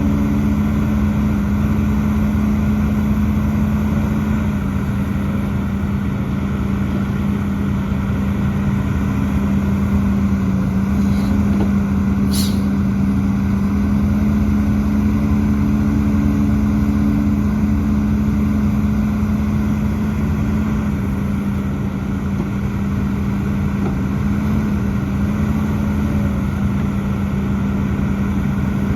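Hidromek HMK 230LC hydraulic excavator's diesel engine running steadily under working load, its drone shifting slightly in pitch now and then. A short sharp click about twelve seconds in.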